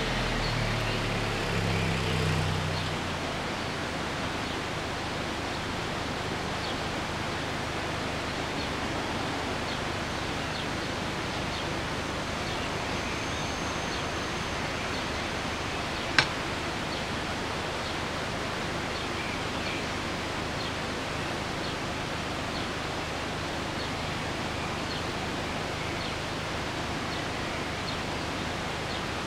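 A car engine idling as the car pulls up and stops, fading out after about three seconds, then a steady hiss of background noise. One sharp click comes just after the middle.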